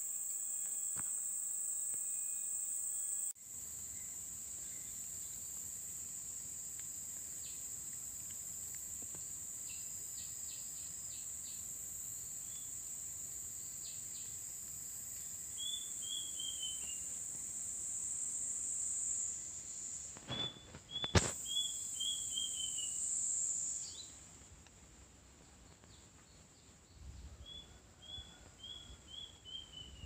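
Tropical forest ambience: a steady high-pitched insect drone that fades out about two-thirds of the way through. A bird calls three times, each call a quick run of five or six short whistled notes stepping down in pitch. A single sharp click sounds a little past the middle.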